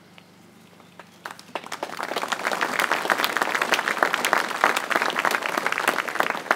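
Crowd applauding: clapping starts about a second in and quickly builds to steady, dense applause.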